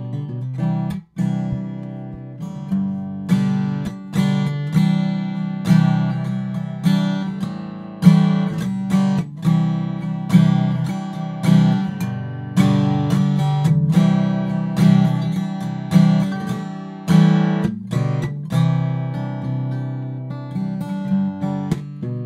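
Acoustic guitar strumming chords, a strum about once a second with each chord ringing and fading, played back from a recording made through one of the microphones under comparison (microphone number 3).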